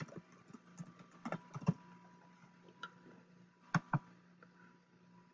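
Scattered clicks of a computer mouse and keyboard, with a quick pair of clicks about four seconds in, over a faint steady hum.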